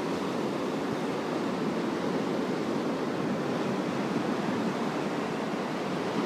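Rough monsoon sea surf breaking onto a rocky shore: a steady, even rush of churning water, with no single crash standing out.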